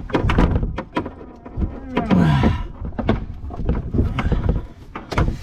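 Clunks, knocks and rattles of faucet parts and hose being handled inside a cramped under-sink cabinet, with a brief scraping rush about two seconds in.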